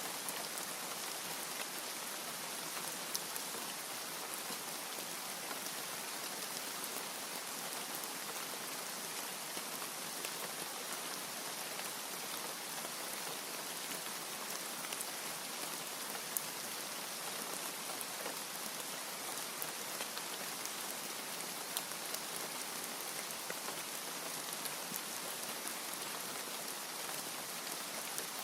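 Steady rain falling, an even hiss dotted with scattered sharper drop ticks.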